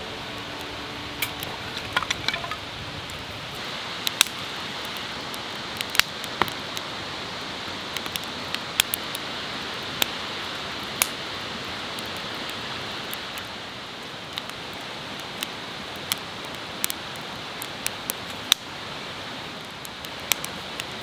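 Wood fire burning in a Uniflame Nature Stove Large, a folding fire stand, with irregular sharp pops and crackles over a steady hiss.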